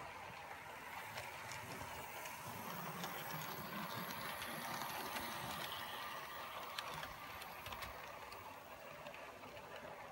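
Bachmann OO-gauge model Class 47 locomotive and coaches running along the track: a steady whir of the motor and wheels with small clicks. It gets louder as the train passes close, about two to six seconds in, then eases off.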